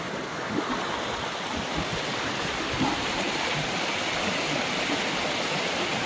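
Steady rush of flowing water from a mountain stream.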